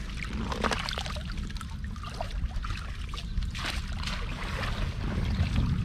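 Water sloshing and splashing, with several separate splashes over a steady low rumble.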